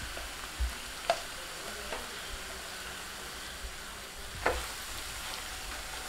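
Diced citron frying in sesame oil on a low flame, a steady gentle sizzle, while a silicone spatula stirs red chilli powder into it. A few light knocks of the spatula against the pan, the sharpest about four and a half seconds in.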